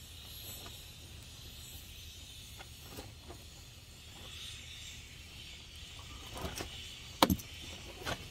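Hands working parts inside a 2007 Saturn Vue's door frame: scattered light knocks, then two sharp clacks a little after seven seconds in and a smaller one just after, over a steady high hiss.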